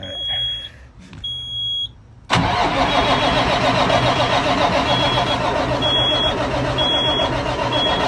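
Starter cranking the Caterpillar 3406E diesel, cutting in sharply a little over two seconds in and running for about six seconds without the engine catching: a crank-no-start. A warning beeper sounds about once a second.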